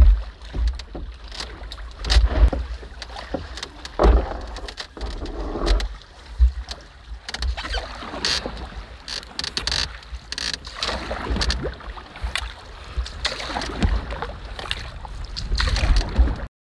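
Canoe being launched and paddled in shallow water: irregular splashes and knocks from the paddle and hull, with wind rumbling on the microphone.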